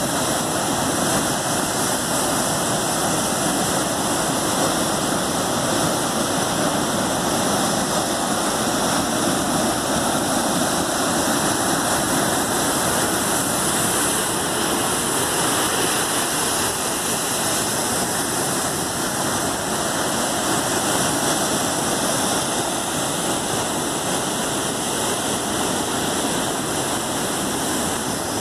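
Heavy storm surf breaking against rocky cliffs, with white water churning below: a steady, unbroken rush of water in which no single wave stands out.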